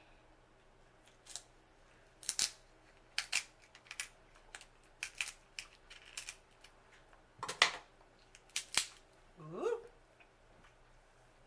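Seafood shells, lobster and crab, being cracked and snapped apart by hand: a string of sharp, uneven cracks and clicks, loudest twice, with a brief rising tone near the end.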